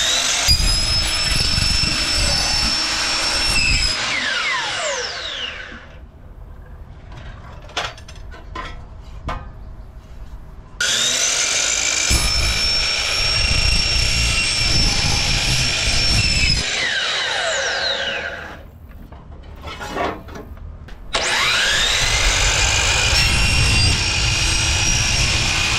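DeWalt DWS780 12-inch sliding compound miter saw cutting seamless sheet-metal rain gutter, three times: each run is a loud, high motor whine with the blade biting through the gutter. After the first two cuts the trigger is released and the whine falls in pitch as the blade winds down. A few short clicks and knocks come between cuts.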